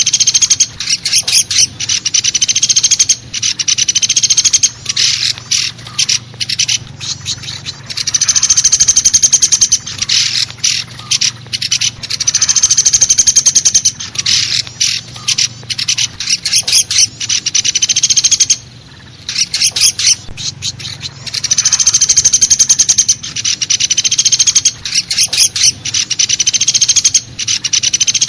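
Woodpecker calls from a bird-lure recording: long, rapid rattling trills of high notes, repeated over and over with short pauses, and a break of about a second about two-thirds of the way through.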